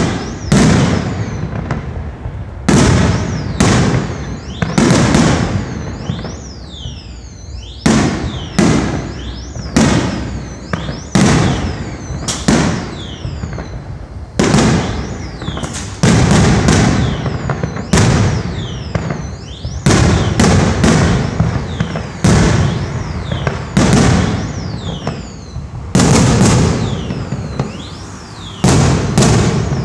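Fireworks display: aerial shells bursting overhead one after another, a loud bang roughly every second at an uneven pace, each one trailing off before the next.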